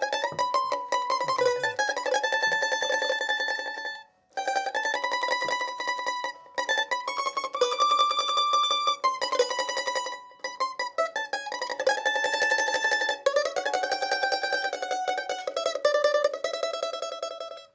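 Prim tambura played with fast tremolo picking, a folk tune of held, shimmering notes. The playing breaks off suddenly for a moment about four seconds in, then carries on.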